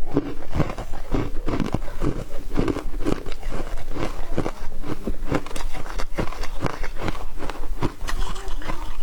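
Foam ice being bitten and chewed: a quick, irregular run of crunches, a few each second, throughout.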